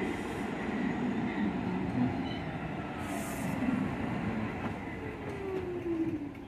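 R46 subway train pulling into the station and braking to a stop, its wheels and running gear rumbling. There is a short hiss about three seconds in, and a falling whine near the end as the train slows to a halt.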